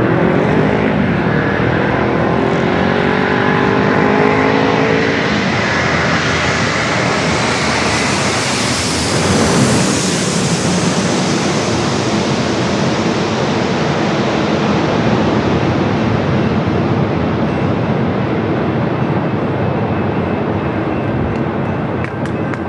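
Jet airliner engines on landing approach, passing close by. A steady loud roar with a whine that falls in pitch over the first few seconds, the hiss brightest about nine to ten seconds in, then settling into a steady rumble.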